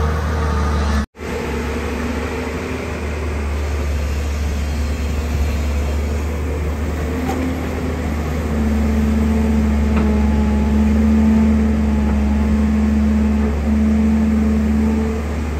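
JCB JS205 excavator's diesel engine running steadily under digging load, with a low hum. A steadier droning tone comes in about eight seconds in and holds until near the end. The sound cuts out for an instant about a second in.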